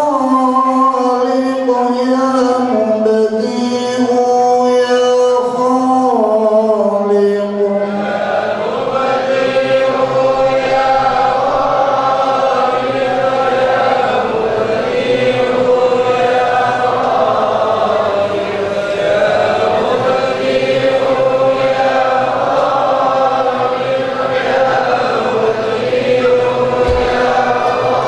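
Men chanting Islamic dhikr in a slow melodic chant, a single leading voice over a microphone at first, with the congregation joining in unison about eight seconds in.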